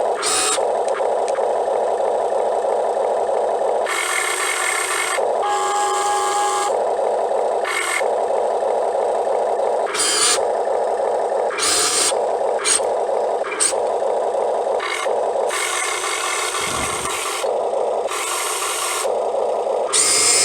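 Electric motors and metal gearboxes of a remote-control excavator whirring steadily, with repeated short bursts of harsher grinding as functions start and stop.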